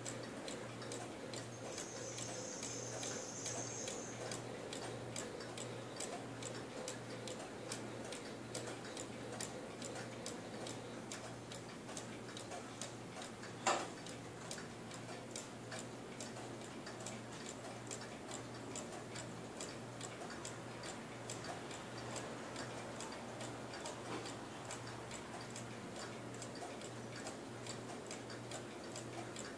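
Mechanical cuckoo clock ticking steadily and evenly, its pendulum escapement running after a repair. About halfway through, a single sharper click stands out over the ticking.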